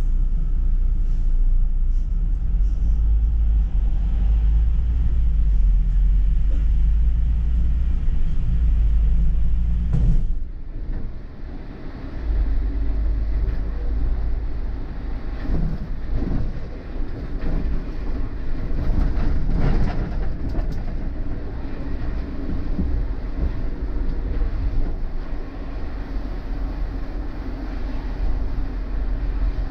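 City bus driving, its engine and road noise making a continuous low rumble. About ten seconds in the rumble drops suddenly and turns rougher, with a few knocks and rattles.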